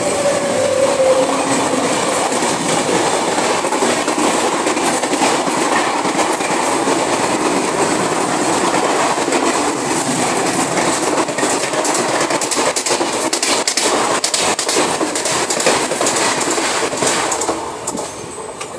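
A passing electric-hauled passenger train rushing by close alongside, heard from the open window of a moving train. Its wheels clatter rapidly over the rail joints, the clatter growing denser in the second half, and the rush drops away near the end as the last coach clears.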